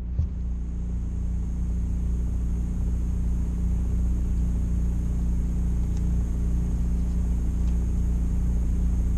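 Steady low mechanical drone with a faint high-pitched whine above it, unchanging throughout.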